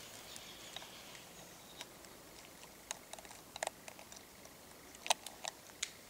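Black woodpecker pecking and chiselling at a tree trunk while foraging: irregular single sharp knocks on the wood, not a rapid drumming roll, with small clusters of blows around the middle and near the end.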